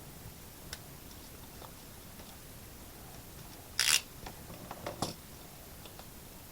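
Small handling noises at a workbench: a short, sharp noisy sound about four seconds in, followed by a few softer clicks and rustles, over a faint steady hiss.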